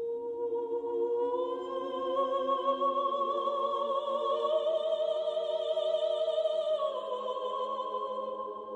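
Slow Armenian hymn sung with long held notes and vibrato over sustained lower notes; the melody rises about a second and a half in and steps down near seven seconds.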